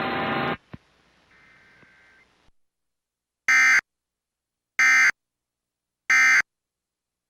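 Emergency Alert System SAME digital header tones sending the end-of-message signal: three identical short, loud, buzzing data bursts, each about a third of a second long and a little over a second apart, marking the close of the test.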